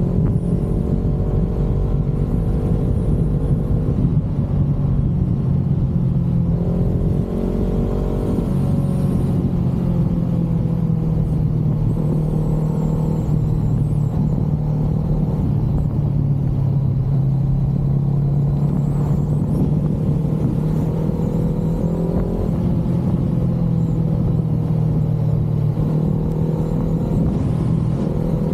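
Honda CBR500R's parallel-twin engine running through an Akrapovic exhaust, holding a steady speed, its pitch stepping up or easing down slightly a few times.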